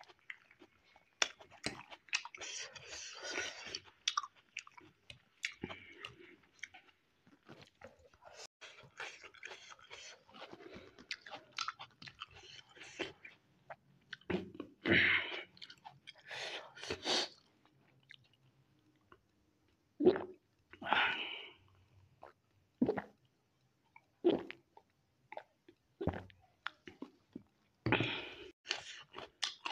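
Close-miked chewing of a mouthful of spicy instant noodles: wet mouth clicks and smacking that come and go in short bursts, picked up by a clip-on microphone on the eater's shirt. About halfway through there is a drink from a glass.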